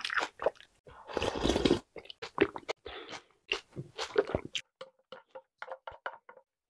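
Slurping a mouthful of milk from a bowl, then chewing milk-soaked Jolly Pong puffed-wheat snacks and Oreo cookie pieces, with light crunches that turn into a quick run of small clicks near the end.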